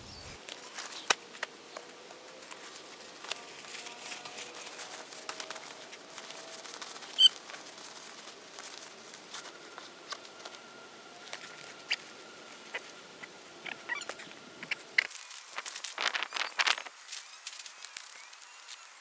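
Scattered rustles and light clicks of camping gear being packed away: a sleeping bag stuffed into a nylon stuff sack and its drawcord pulled tight. A louder burst of rustling comes near the end.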